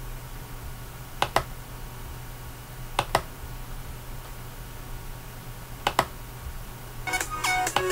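Three pairs of sharp clicks, a couple of seconds apart, from computer controls being pressed to restart music. Electronic music with plucked notes starts near the end.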